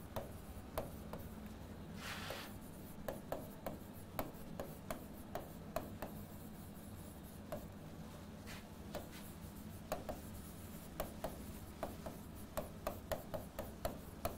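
A pen writing on a board: irregular light taps and short scratchy strokes, with one longer stroke about two seconds in.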